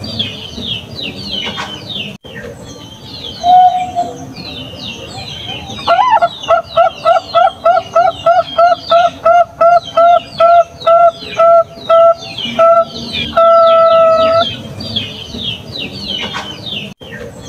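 Bangkok-type zebra dove (perkutut) cooing: a single short coo, then a rapid run of about twenty short coos at a steady pace, ending in one long held note. High-pitched twittering of small birds goes on throughout.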